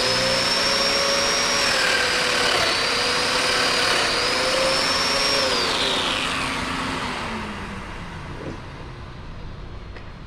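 An electric power tool's motor running at full speed with a steady high whine, switched off about five and a half seconds in and spinning down over the next two seconds.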